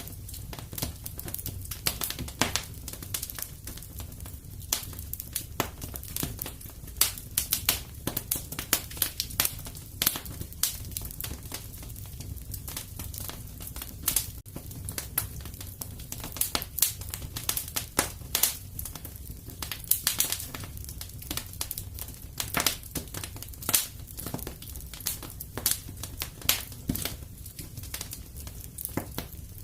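Wood fire in a fireplace crackling and popping: many irregular sharp snaps over a steady low rumble of the flames.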